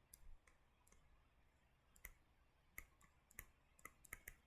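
Near silence with faint, scattered clicks that come more often in the last couple of seconds.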